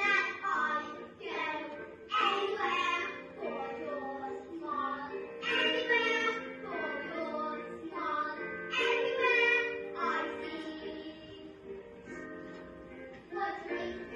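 Two young girls singing a duet.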